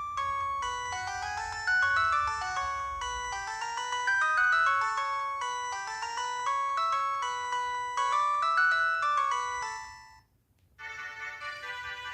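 Polyphonic ringtone melodies played through an LG MD5330 mobile phone's speaker. One tune dies away about ten seconds in, and after a short pause a different ringtone starts.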